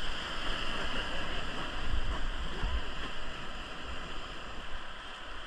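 Rushing river water of rapids around a raft, a steady hiss, with a few low bumps about two seconds in.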